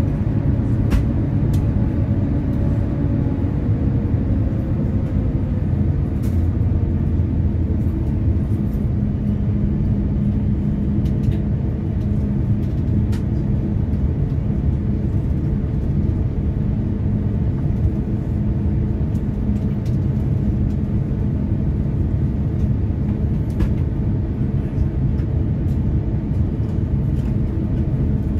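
Cabin noise of an Airbus A350-1000 taxiing: a steady low rumble from its Rolls-Royce Trent XWB engines at low thrust and the rolling airframe. A faint steady hum joins in about eight seconds in.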